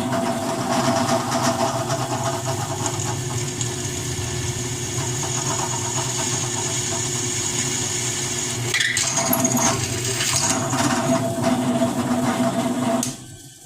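Electric drill motor running steadily as a Harbor Freight Warrior titanium twist bit bores a hole, with a short break and a click about nine seconds in. The motor shuts off and winds down near the end.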